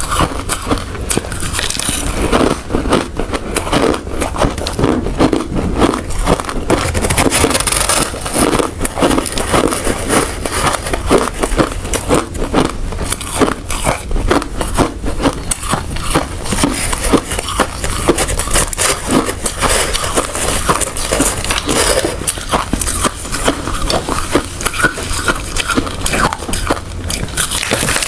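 Close-up chewing and crunching of hard ice: a rapid, irregular run of loud cracks and crackles as the ice is bitten and ground between the teeth.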